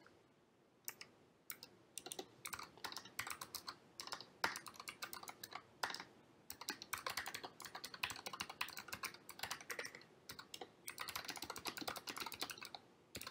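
Typing on a computer keyboard: quick, irregular key clicks in bursts with short pauses, starting about a second in.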